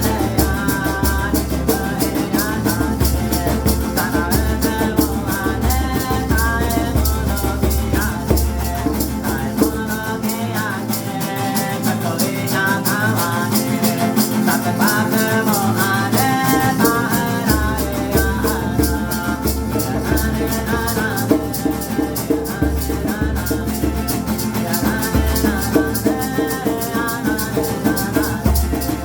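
Ceremonial chant: voices singing a melody over a hand rattle shaken in a fast, steady beat, with a low undertone that drops out for several seconds about ten seconds in.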